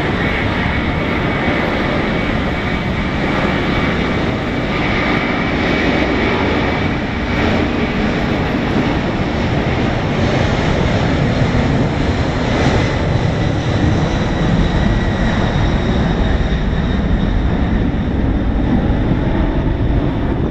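McDonnell Douglas MD-11F's three turbofan engines at takeoff thrust as the trijet freighter rolls down the runway and rotates near the end: a loud, steady jet roar with a thin high whine over it, growing slightly louder in the second half.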